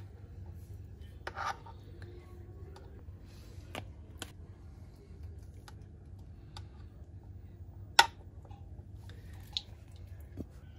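Sparse clicks and taps of kitchen utensils and dishes being handled, with a short scrape about a second and a half in and one sharp clink about eight seconds in. A low steady hum underneath.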